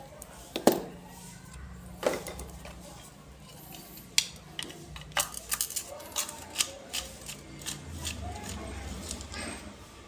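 Sharp clicks and taps of hand tools: two snaps of pliers on a wire end, then a quick run of small clicks as a screwdriver works the screws of a plastic surface-mount power socket.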